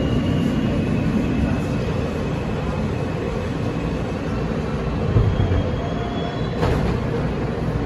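Rumble of an R160 subway car's wheels and running gear heard from inside the car as it brakes into a station, with a faint high squeal or whine above it. A sharp click about six and a half seconds in, and another at the very end.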